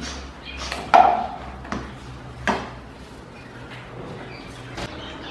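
Silicone spatula tossing sauce-coated chicken wings in a nonstick wok: a handful of scrapes and knocks against the pan, the loudest about a second in, over a low steady hum.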